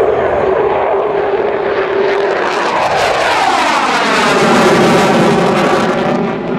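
USAF F-15 fighter's twin jet engines in afterburner, loud as the jet passes close overhead and climbs away. A steady tone early on gives way to a whooshing sweep falling in pitch as it goes over. It is loudest about four to five seconds in, then starts to fade near the end.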